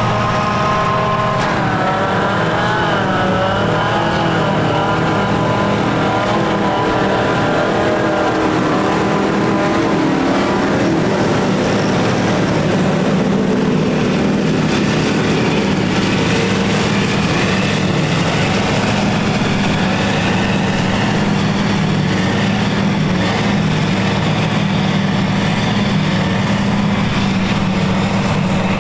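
John Deere 6950 self-propelled forage harvester running under load as it chops grass silage and blows it into a trailer, with a tractor running alongside. The pitch wavers for the first ten seconds or so, then settles into a steady, loud drone.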